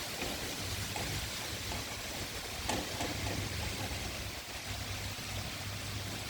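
Steady rain falling, an even hiss with a few sharper drop strikes, one standing out near the middle, over a low rumble.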